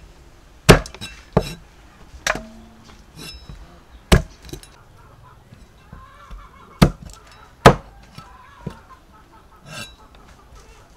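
Meat cleaver chopping raw chicken heads on a thick round wooden chopping block: about six loud, sharp chops at uneven intervals, with a few lighter knocks between them.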